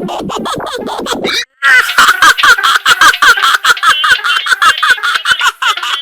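A cartoon character's hiccuping voice clip, edited into rapid stutters of about six a second and pitch-shifted, so that it sounds like giggling. About a second and a half in it cuts out briefly and comes back louder and higher in pitch.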